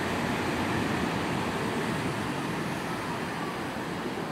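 Steady rushing outdoor noise of wind and distant sea surf heard from high up, with faint far-off voices.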